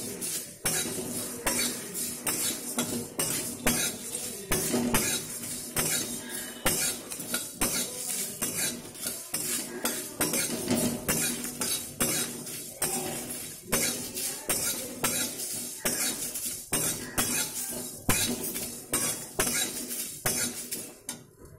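Metal spatula scraping and clinking against a dry steel kadai in quick repeated strokes, stirring whole spices as they are dry-roasted; the stirring dies away just before the end.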